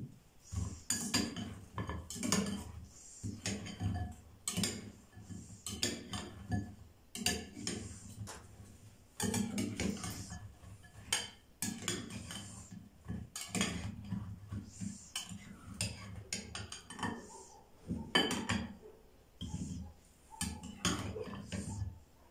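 A metal slotted spoon clinking and scraping against a glass bowl and plates as syrup-soaked fried pastries are scooped out, with many short, sharp clinks and knocks at an uneven pace.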